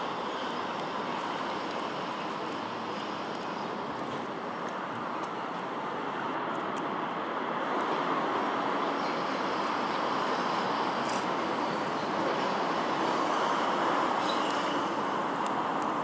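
Diesel railcar running as it approaches slowly along the track, the sound growing a little louder toward the end.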